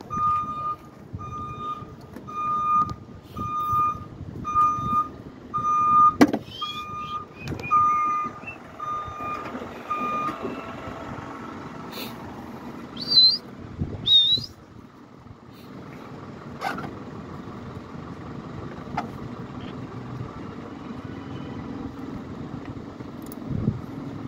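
A vehicle reversing alarm beeping at an even pace, a little more than once a second, then stopping about ten seconds in. A sharp knock comes about six seconds in, and a steady outdoor hum continues after the beeping ends.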